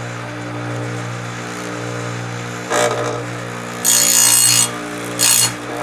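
Penson electric chainsaw sharpener's motor humming steadily while its abrasive wheel is brought down onto the chain's cutters three times, each a brief grinding hiss, the middle one the longest.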